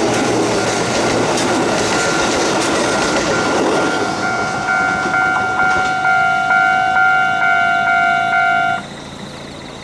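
A Kotoden 1070 and 1080 series electric train running past with wheel clatter, its noise fading as the last cars go by. After about four seconds a ringing alarm sounds about twice a second, typical of a level crossing bell, and cuts off suddenly near the end once the train has cleared.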